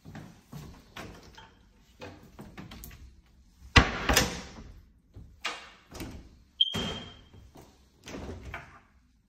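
Fitted kitchen drawers and cupboard doors being pulled open and pushed shut: a run of knocks and short sliding rumbles, the loudest a sharp bang about four seconds in.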